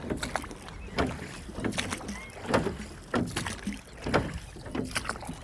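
Small rowboat being rowed, its oars dipping and splashing in the water in a steady rhythm, a little more than one stroke a second.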